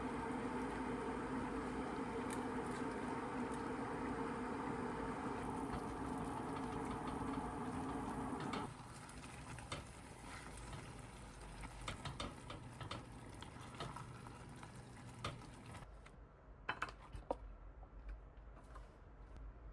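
A steady hum cuts off about nine seconds in, followed by scattered light clinks and taps of dishes and utensils.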